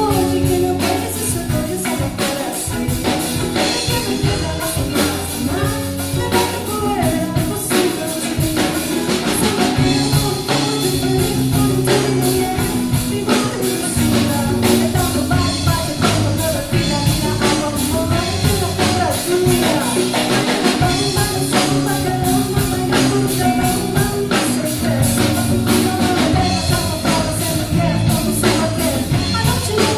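Samba music: a band playing with singing over busy, steady percussion and a bass line.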